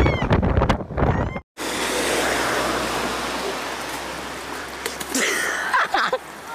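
A woman's high voice in wind, cut off abruptly about a second and a half in. Then a steady rush of water flowing across a road, with a short cry near the end as a skimboarder falls into it.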